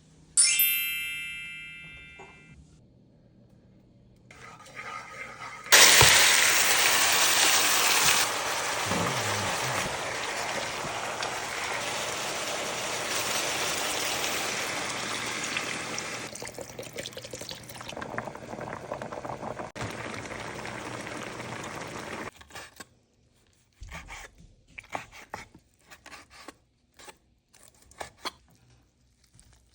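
A bright chime-like ding that rings out and fades at the start. About six seconds in, a loud, steady rush of running or pouring water begins and lasts about sixteen seconds. It is followed by scattered light clicks and knocks.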